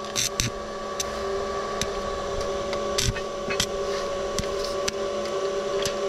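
Stick (arc) welding of steel rebar onto a steel drain-grate frame: the arc crackles with irregular sharp pops, over a steady hum.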